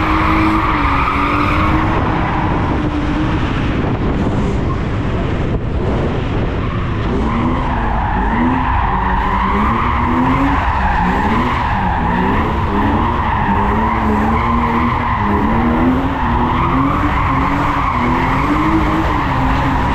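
A car drifting: its engine revving up and down over and over while the tyres squeal and skid, the squeal easing for a few seconds early on and then coming back strongly.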